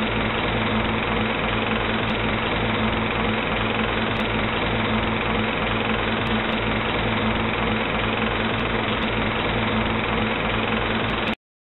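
Movie projector running: a steady, rapid mechanical clatter with a hum. It cuts off suddenly near the end.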